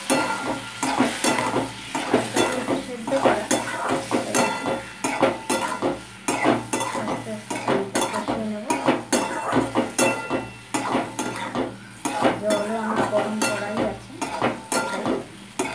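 Spatula stirring and scraping spiced potatoes in a steel kadai, with many irregular clinks and scrapes against the pan over the sizzle of frying masala. This is the masala being fried down (kosha) with a splash of water.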